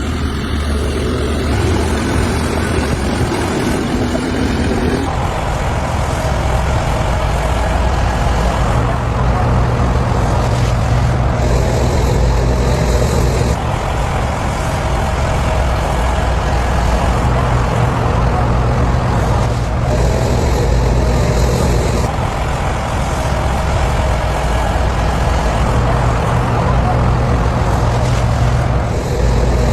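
Heavy diesel earthmoving machinery running continuously. The low engine note strengthens for a few seconds at a time, over and over, as the machines work under load.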